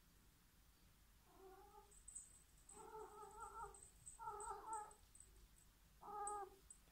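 Orange tabby cat giving four drawn-out, wavering meows while carrying its fetch toy in its mouth, the last call the shortest and loudest.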